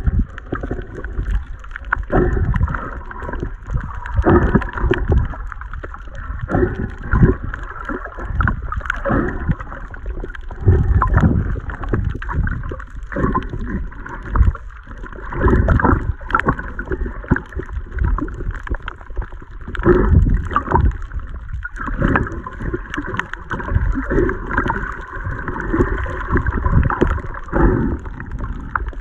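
Muffled underwater water noise: irregular sloshing and gurgling surges, heard through a camera held underwater while swimming.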